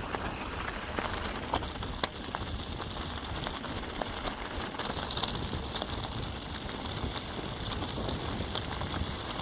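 Mountain bike rolling over a rocky dirt trail: tyres crunching on gravel, with many small irregular clicks and rattles from stones and the bike.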